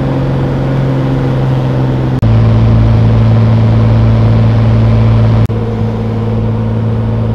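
Light aircraft's engine and propeller running steadily, heard from inside the cabin of a small high-wing single-engine plane. The steady drone cuts abruptly twice, about two and five seconds in, and comes back each time at a slightly different pitch.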